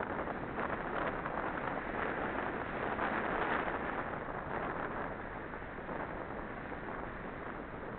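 Wind rushing over the microphone of a camera moving along a dirt forest trail: a steady, rough noise with no distinct events.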